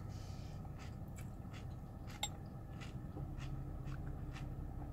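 Faint chewing of a mouthful of Cocoa Pebbles cereal: soft, irregular crunchy ticks over a low steady hum, with one sharper click a little after two seconds.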